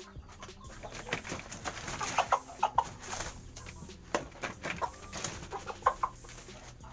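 Domestic chicken clucking and squawking in short calls while being caught and picked up by hand, with scuffling knocks of the handling. The calls come in two clusters, about two to three seconds in and again near the end.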